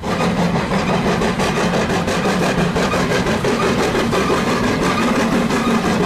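Full-size steam locomotive dressed as Thomas the Tank Engine working a train of coaches, its exhaust chuffing in a fast, even beat over the rumble of the train.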